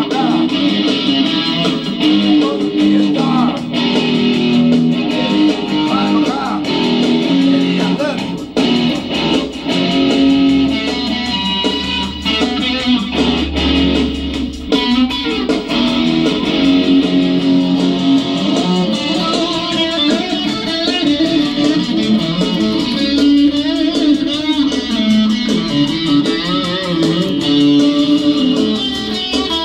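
Red solid-body electric guitar playing an instrumental break of a rock song, with picked notes and chords and no singing.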